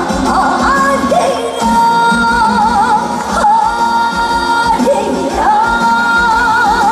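A woman singing a Korean trot song live over a backing band, holding long notes that end in a wide vibrato.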